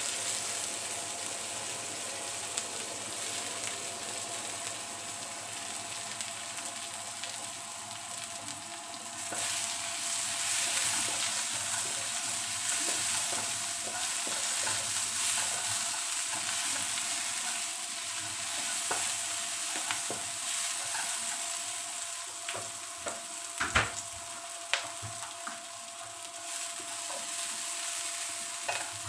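Sliced onion and garlic sizzling in hot oil in a nonstick wok, stirred with a slotted spatula. The hiss grows louder about a third of the way in, and in the second half the spatula clicks and knocks against the pan, with one sharp knock about three-quarters of the way through standing out as the loudest.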